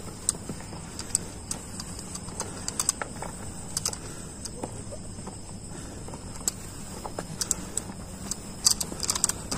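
Footsteps of several hikers on a dirt trail, with irregular scuffs and crunches, over a steady high chirring of crickets.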